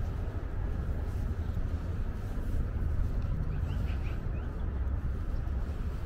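Steady low rumble of city traffic, with a few short bird chirps about four seconds in.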